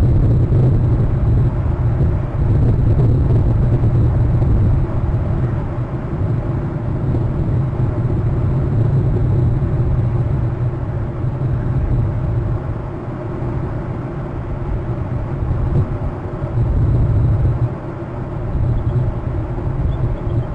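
Wind buffeting an outdoor camera microphone: a heavy, steady low rumble that swells and dips.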